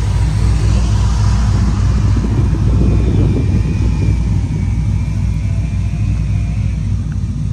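Pickup truck engine idling with a steady deep rumble.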